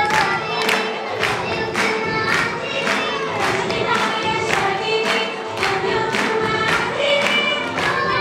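Music: a group of voices singing together over a steady beat of about three strikes a second.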